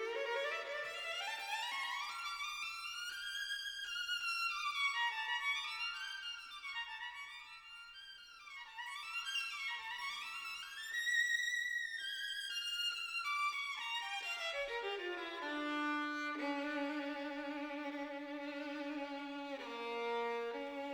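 Background music on solo violin: fast rising and falling runs of notes, settling into long held notes about two-thirds of the way through.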